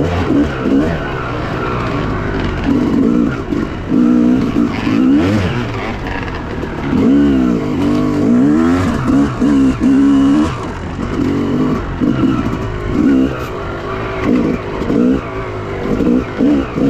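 Dirt bike engine revving up and down under a working throttle. The pitch rises and falls every second or so, with a longer, louder pull about seven to ten seconds in.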